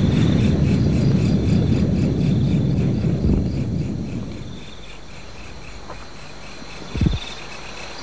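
Crickets chirping in an even pulse, about four chirps a second. A loud low rumble fills the first half and fades out about four to five seconds in. A single dull thump comes near the end.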